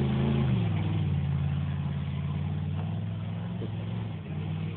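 Off-road vehicle's engine, its revs dropping about half a second in, then running steadily and growing fainter.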